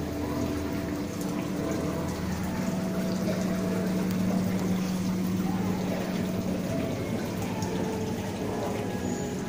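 Water running steadily in an indoor koi pool, a constant rush with a low, steady hum through most of it.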